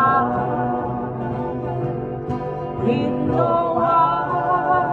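Acoustic guitars strumming under several voices singing in harmony, holding long, slightly wavering notes; a new sung phrase comes in a little past the middle.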